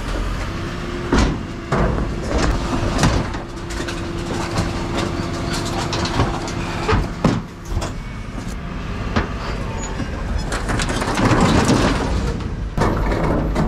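Hydraulic bin lift on a Dennis Elite Plus refuse truck raising, tipping and lowering a large wheeled bin over the running truck. A steady tone holds for the first half, with repeated clanks and bangs as the bin is shaken out.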